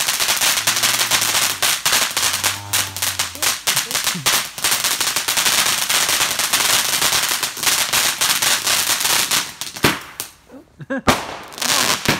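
Fireworks going off: a dense, continuous crackle of rapid pops that dies away about ten seconds in, followed by a few separate sharp bangs.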